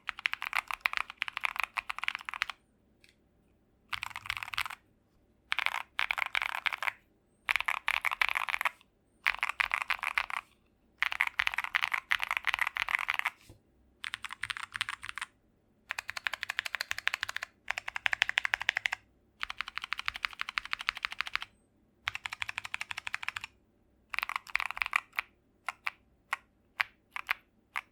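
Akko ACR Pro mechanical keyboard being typed on in fast runs of keystrokes, each run a second or two long with short pauses between, ending with a few separate key presses.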